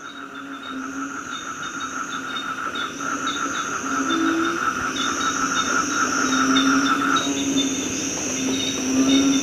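Night chorus of crickets and other insects: several steady trilling layers with repeated chirps and a lower droning tone underneath, fading in over the first few seconds.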